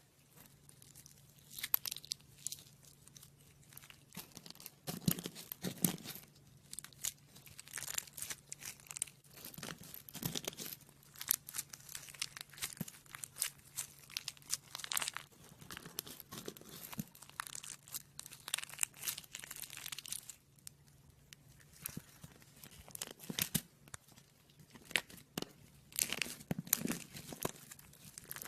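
Slime being squeezed and stretched by hand: a dense, irregular run of sticky crackling and popping clicks, pausing now and then.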